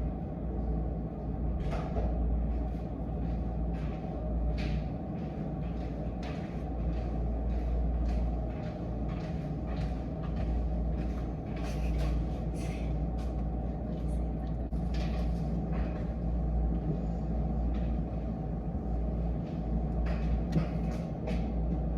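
Steady low background rumble, with scattered light taps and clicks every second or two on top.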